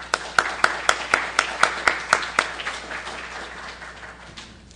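Audience applauding at the end of a talk. One loud clapper keeps an even beat of about four claps a second over the spread of many hands, and the applause dies away about three seconds in.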